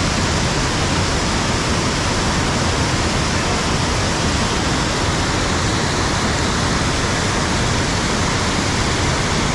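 Waterfall water rushing: a loud, steady wash of noise that does not change.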